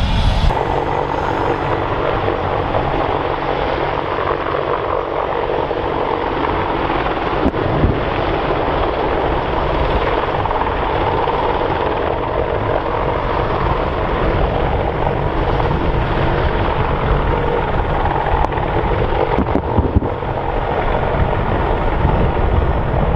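Several AH-64 Apache attack helicopters flying low, their rotors and engines making a steady, dense beating noise. A couple of short sharp knocks stand out, one about a third of the way in and one near the end.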